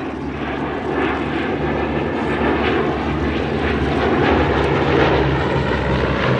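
Bristol Blenheim's twin Bristol Mercury radial engines running in flight, growing steadily louder as the aircraft approaches.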